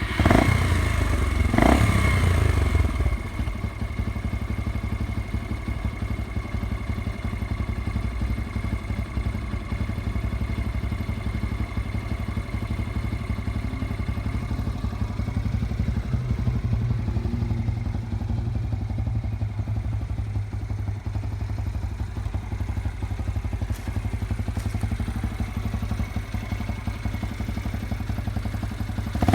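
Yamaha XT 125 X's single-cylinder four-stroke engine starting up, running louder for the first three seconds, then idling steadily.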